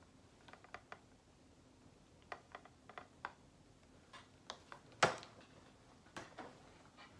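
Light clicks and taps of a plastic-packaged set of string lights being handled, with one louder knock about five seconds in.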